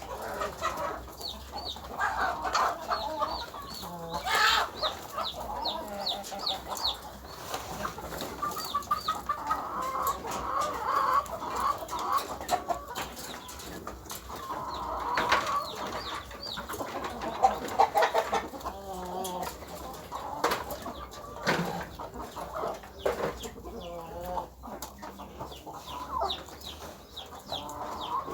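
Chickens clucking and calling, with runs of high, short peeps and scattered sharp clicks.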